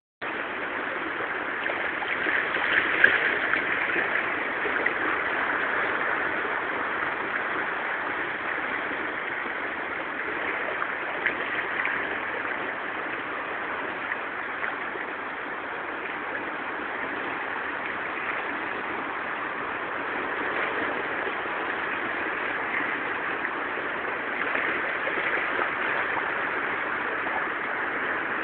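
Sea waves washing over a rocky shore: a steady rushing of water, swelling slightly now and then, with a louder surge about three seconds in.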